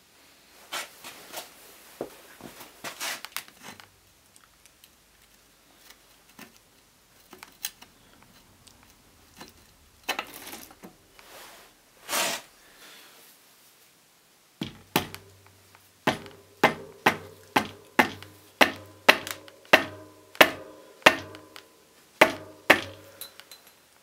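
Repeated knocks, about two blows a second, as the crank spindle is driven out through the bike's bottom bracket, the frame ringing with each blow. Before that, scattered clicks and rattles of tools working at the crank.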